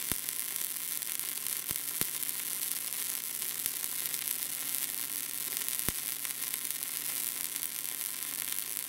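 Wire-feed welding arc crackling steadily while a buildup bead is laid around a mild steel shaft, with a few sharp pops.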